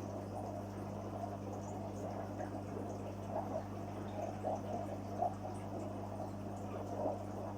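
Water bubbling and trickling in a koi fry tank, with scattered small pops and splashes, over a steady low hum.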